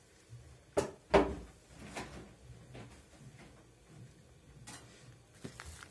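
Hands turning and tossing chopped herbs through couscous in a wooden bowl, with a few sharp knocks, the loudest about a second in.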